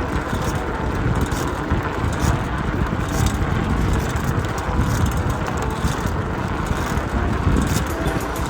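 Steady wind rush and rumble on the microphone of a camera riding along a trail, with rolling noise from the ride.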